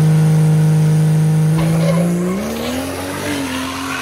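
Cummins diesel race truck engine running hard at a steady pitch, then rising in pitch over the last two seconds before cutting off suddenly.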